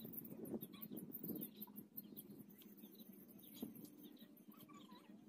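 Faint chickens clucking and small birds chirping in the background, with soft rustling of a nylon cast net being gathered by hand, busiest in the first two seconds.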